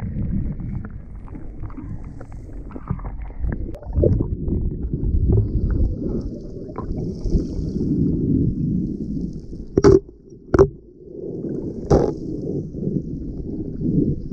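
Muffled sloshing and rumble of shallow sea water heard through an underwater camera's waterproof housing. Three sharp knocks stand out past the middle, two close together and a third a moment later.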